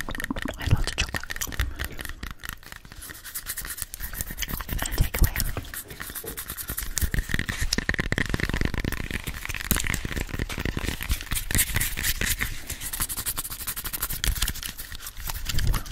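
Long fingernails scratching and tapping on the skin of a whole apple close to the microphone: a dense, steady run of small scrapes and clicks.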